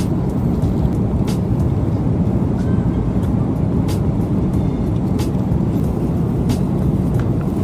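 Steady low rumble of a vehicle in motion heard from inside the cabin, with a few faint clicks.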